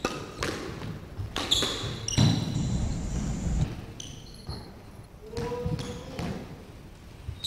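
Squash rally: sharp knocks of the ball off racket and walls, with court shoes squeaking on the wooden floor in high, short squeals in the first half.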